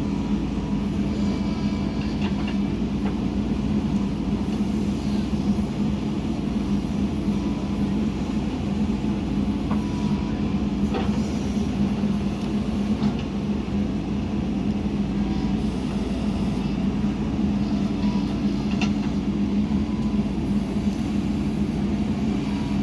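Diesel engine of a JCB 3DX backhoe loader running steadily, with a few faint knocks about halfway through and near the end.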